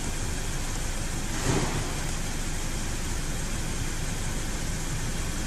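Audi A6 engine idling steadily, running with freshly fitted spark plugs and a new cylinder-3 ignition coil after a misfire repair. A short noise stands out about a second and a half in.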